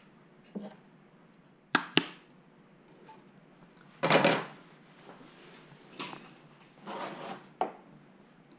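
Parts and tools being handled on a workbench: two sharp clicks close together about two seconds in, a short rustling scrape around four seconds, then a few lighter knocks and rustles.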